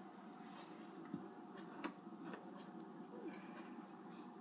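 Faint ticks and taps of a metal spoon against a ceramic bowl as brown sugar and cinnamon are stirred, with one sharper click late on.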